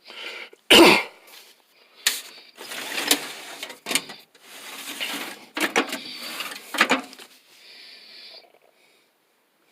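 Metal tool chest drawers being slid shut and pulled open on their slides, a rough rolling rattle, with a loud clunk about a second in and several lighter knocks as drawers close and stop.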